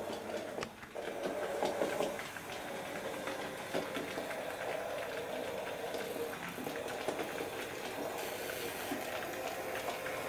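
A small OO gauge model tank locomotive running on its track hauling coaches: a steady whirring hum with frequent small clicks of the wheels over rail joints and points. The coaches creak as they run.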